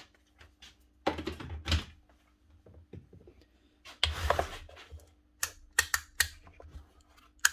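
Bosch GSH4 demolition hammer scraped and shifted on a workbench, then its trigger switch clicked several times in quick succession without the motor starting. The tool is dead, a fault the owner traces to its field winding rather than the switch.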